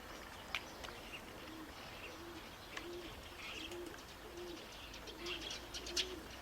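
Pigeon cooing: a faint, even run of short low coos, about one every 0.6 s, starting about a second and a half in, with scattered high bird chirps over it.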